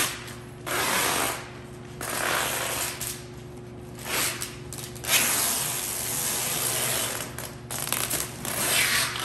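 Large clear plastic mattress bag rustling and crinkling as it is pulled down over a standing mattress, in irregular swells lasting from under a second to a few seconds.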